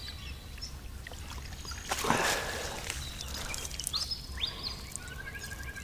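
A brief water splash about two seconds in, over quiet outdoor ambience, followed by faint high chirps and a thin held whistled note near the end.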